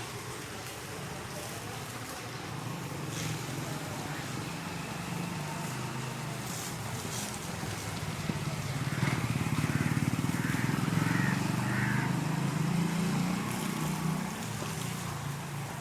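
A vehicle engine running, growing louder about halfway through and fading again near the end.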